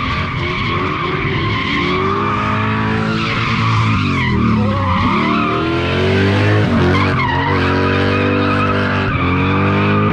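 Drift car's engine revving hard with tyres squealing as the car slides sideways through a corner. The revs rise and fall, dipping sharply about four seconds in and again a little past seven seconds.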